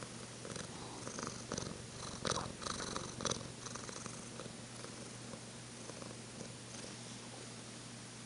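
Domestic cat purring, with a few louder surges in the first half that then settle to a softer, steady purr.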